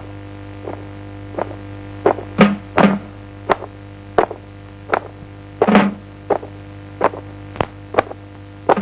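Slow percussive beat of sharp knocks: a light knock about every 0.7 s and a heavier double strike every three seconds or so. A steady low hum runs underneath.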